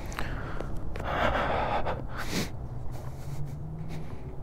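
A person's breath close to the microphone: a noisy exhale lasting about a second, then a short sharp sniff, over a low rumble.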